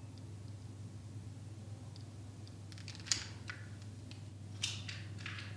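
A few small clicks and taps, one about three seconds in and two near the end, as tealights are lit and set into the metal holders of a candle stand, over a steady low hum.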